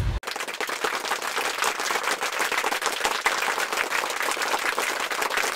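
Applause: a dense, even patter of many hands clapping that starts and stops abruptly.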